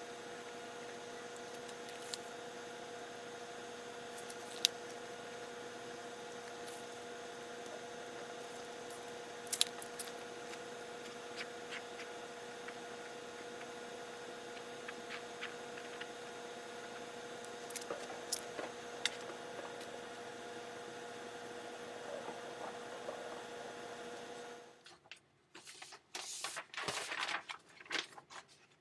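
Steady background hum made of several held tones, with faint scattered clicks and taps. About 25 seconds in the hum cuts off suddenly, and a short run of louder clicks and rustles follows.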